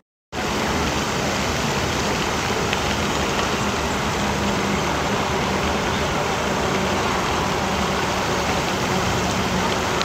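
A steady, even roar of outdoor background noise with a faint low hum and no distinct events.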